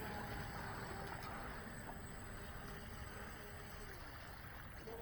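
Pro Boat Recoil 2 RC boat's brushless electric motor giving a faint whine as the boat runs on the water. The whine slowly drops in pitch and fades, over a hiss of wind and water.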